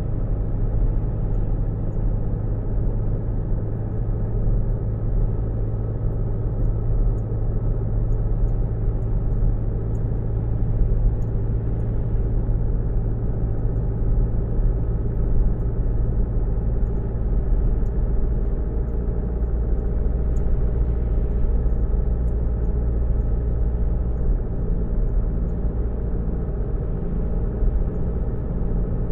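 Car engine and road noise heard from inside the cabin: a steady low hum with no marked changes.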